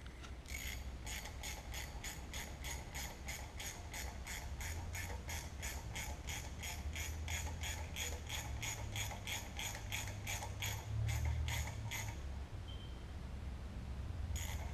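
Ratchet wrench clicking in an even rhythm, about three to four clicks a second, as it turns a tap to chase out the bolt-hole threads in the tractor's axle housing. The clicking stops about 12 seconds in and starts again near the end.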